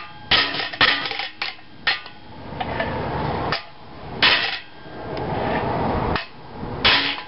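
Hammer blows driving an aluminium suspension bushing into its bore: about ten sharp, unevenly spaced strikes, the final blows that seat the bushing flush.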